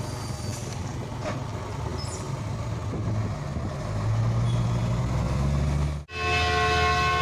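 A heavy truck's diesel engine rumbling, louder from about four seconds in; just after six seconds a multi-tone air horn sounds, several steady notes held together as one loud chord.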